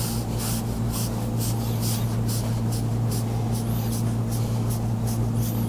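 Hands rubbing and pressing over a person's back and clothing, a quick run of short soft rustles, against a steady low electrical hum.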